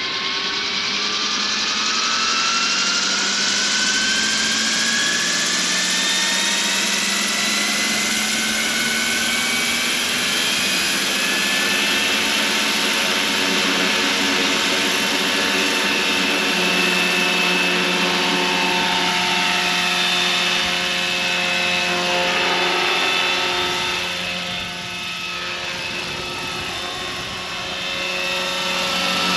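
Electric 600-size Roban Hughes MD500 scale RC helicopter spooling up, its motor and rotor whine rising in pitch over the first ten seconds or so, then holding steady at a low 1400 RPM head speed. Near the end the pitch shifts as it lifts off and flies.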